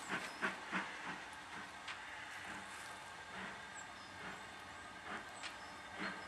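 LMS Stanier Black Five steam locomotive 45379 working a goods train away from a station. Its exhaust beats are sharp and close together in the first second, then fainter and more widely spaced, over a steady hiss of steam.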